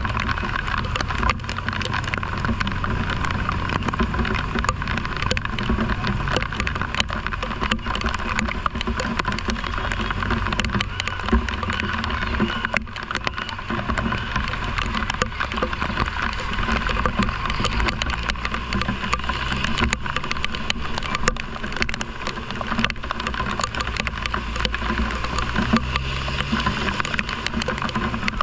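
Motorcycle ride in rain: a steady rush of wind and rain with many small taps of raindrops hitting the camera, over the engine's low rumble, which rises and falls in pitch in the second half.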